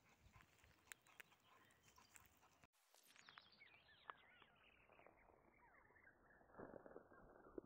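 Near silence: faint open-air ambience with scattered soft chirps and ticks. After a brief dropout about three seconds in, the sound turns steadily more muffled.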